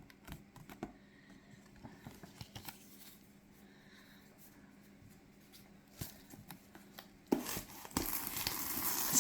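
Quiet handling of tarot cards: scattered soft taps and clicks. About seven seconds in, a louder continuous crinkling of plastic packaging starts.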